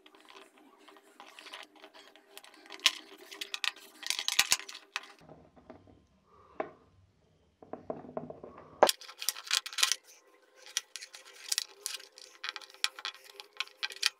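Small irregular metallic clicks, ticks and scrapes as a soldering iron tip and fingers work at an earbud's tiny metal-cased lithium button battery, desoldering it from its tabs, over a faint steady hum.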